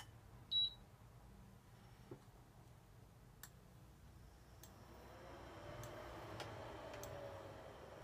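De Dietrich DTI701 induction cooktop: one short beep from its touch controls, then faint, regular clicks about every second and a bit, which the owner puts down to an electronic relay and questions as abnormal. From about halfway a faint wavering hum of the induction heating comes in under the clicks.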